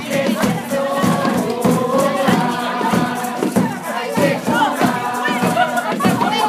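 A group of adults singing a song together over music with a steady beat.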